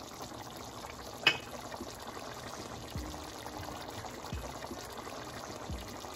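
Hot water pouring from an electric kettle into a glass measuring jug, a soft steady splashing, with one sharp click about a second in.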